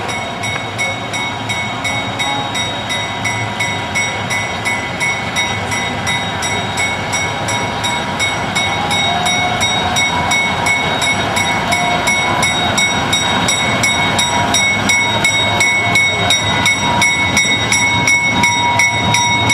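Small diesel switcher locomotive hauling a caboose and a passenger coach past at close range: the engine runs steadily with a regular clicking two or three times a second, growing louder as the train draws near.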